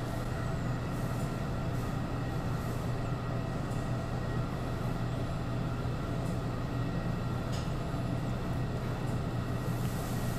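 Steady low hum with a soft hiss of background room noise, unchanging throughout.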